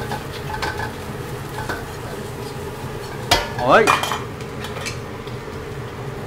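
A metal spoon stirs and scrapes egg in a wok over a steady frying sizzle, with scattered light clicks against the pan and one sharp knock a little over three seconds in. The egg is kept constantly stirred so it breaks into small grains like osmanthus flowers.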